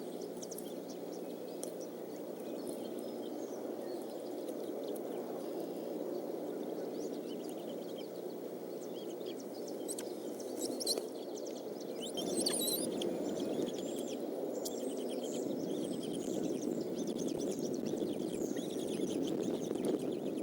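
Outdoor spring ambience on a rainy morning: a steady hiss of rain, with many small birds chirping in the background and a brief, louder burst of high calls about twelve seconds in.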